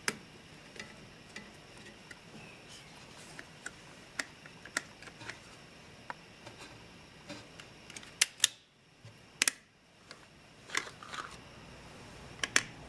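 Scattered sharp clicks and small metallic knocks from a pinball score reel unit being handled and set into its mounting by hand. The louder clicks come in the second half.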